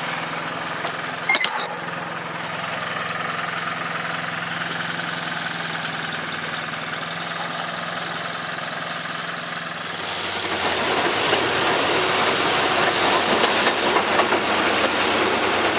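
Diesel engine of a narrow-gauge rail vehicle running steadily, with a sharp click about a second in. About ten seconds in a louder, rougher rumble takes over as the vehicle rolls along the track.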